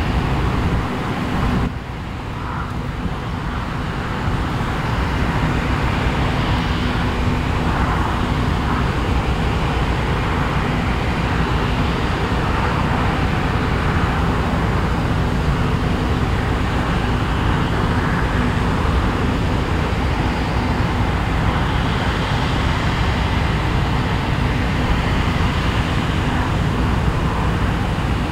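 Claas Lexion 600TT combine harvester running steadily under load, cutting oilseed rape: a continuous heavy engine and machinery drone. It dips briefly about two seconds in and picks up again about four seconds in.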